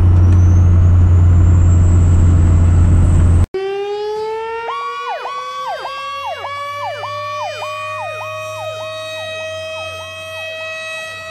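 A fire truck's engine drones steadily, heard from the 2003 Pierce Dash truck on the road, with a faint high whine rising over it. After a hard cut about three seconds in, a fire rescue truck pulls out under sirens: a mechanical siren winds up in a slowly rising wail while an electronic siren sweeps up and down about twice a second.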